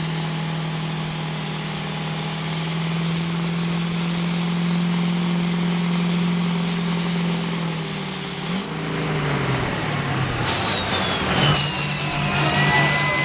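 6.0 Powerstroke V8 diesel in a Mustang running at steady high revs against the pull sled, with a high, steady turbo whistle. About eight seconds in the throttle is lifted: the engine note drops and the turbo whistle winds down in a long falling whine. Bursts of hissing follow, then the engine settles back to a low steady note.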